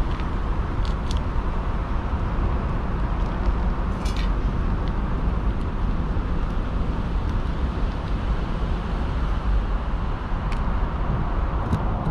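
Steady low rumble of city traffic, with a few faint clicks and a brief crinkle about four seconds in.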